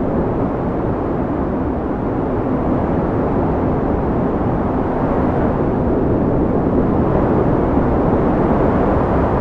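A steady, loud low rumble with no distinct strikes or tones, growing a little louder after about two seconds.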